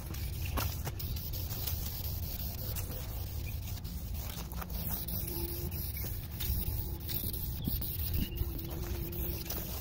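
Aerosol spray can of gloss clear coat hissing as it is sprayed in passes onto a 3D-printed helmet dome, over a low steady rumble.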